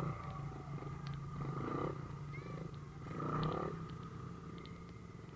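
An engine idling steadily, with faint voices twice in between.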